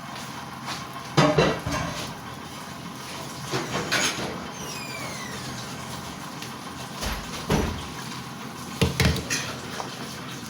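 Cooking utensil knocking against a pot about four times, with a scraping sweep near the middle, over a steady low hiss from the stove.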